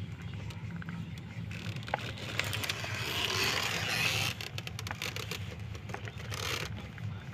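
Domestic cat purring, a steady low rumble, with rustling of fur and handling noise that grows louder between about two and a half and four seconds in, and a couple of small clicks.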